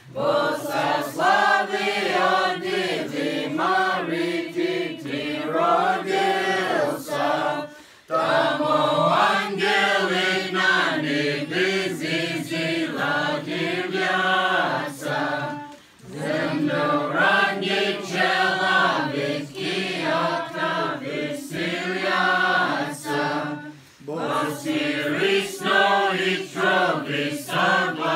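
A crowd of people singing a Slaawiq Christmas starring carol together. The singing comes in even phrases of about eight seconds, with a brief breath between them.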